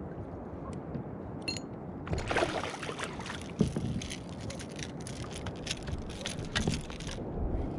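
A small hooked fish splashing and flapping as it is lifted out of the sea on the line beside a kayak, with a quick run of clicks, rattles and water splashes from about two seconds in and a single knock just before the four-second mark. A steady wash of water and wind sits underneath.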